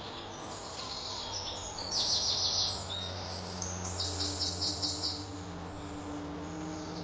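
Songbirds calling: a fast pulsed trill about two seconds in and another about four seconds in, with scattered short chirps, over a steady low hum.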